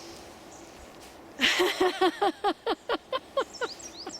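Deliberate laughter-yoga laugh: a loud breathy burst, then a quick run of about ten "ha" pulses that fall in pitch and fade. Birds chirp faintly in the background.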